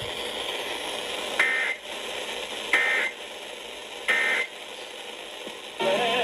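Emergency Alert System SAME header: three short bursts of digital data tones, about 1.3 s apart, over steady radio hiss, marking the start of a new warning. A steady alert tone starts just before the end.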